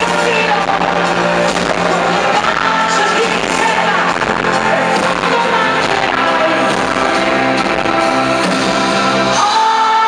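A live pop song played by a full band with singing, heard from among the audience in an arena. Just before the end the bass drops away, leaving the voice and keyboard.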